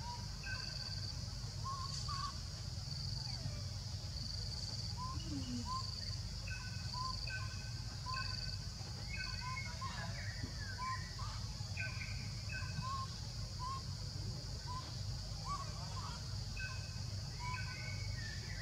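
Forest ambience: birds calling over and over with short rising notes, and a high insect call pulsing evenly on and off that stops about nine seconds in, over a steady low rumble.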